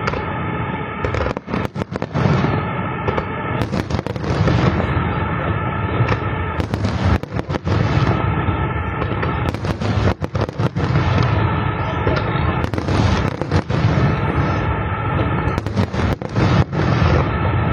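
Aerial fireworks exploding in quick, irregular volleys of bangs and crackles, with a steady droning tone underneath.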